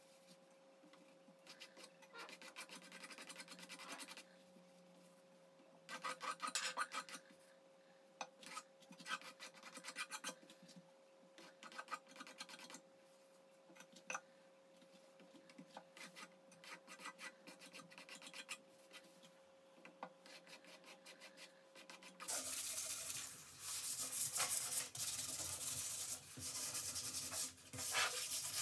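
A palette knife scraping dense chalk-and-glue ground across a canvas, in short scrapes with pauses between. About 22 seconds in, this gives way to louder, steadier sandpaper rubbing back and forth over the ground to smooth it.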